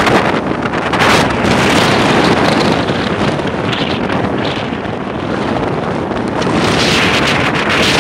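Strong wind buffeting the microphone, a loud rushing that rises and falls in gusts.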